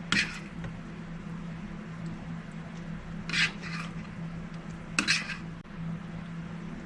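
A serving utensil scraping against a dish as roast vegetables are spooned onto a plate, three short scrapes with a sharp clink at the start of the last one. A steady low hum runs underneath.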